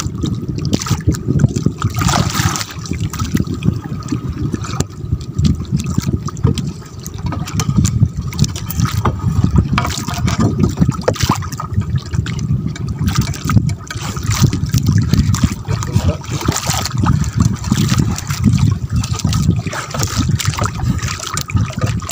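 Water sloshing and splashing, loud, irregular and continuous, with many small splashes throughout.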